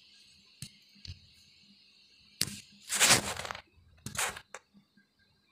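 Metal spatula scraping and knocking against a steel karai as a fried grated-potato filling is stirred: a few separate clicks and scrapes, the longest and loudest about three seconds in.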